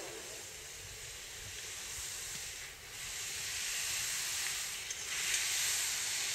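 Giant slalom skis carving turns on hard-packed snow: a steady high hiss of the edges scraping, dipping briefly between turns and growing louder about three seconds in as the skier comes nearer.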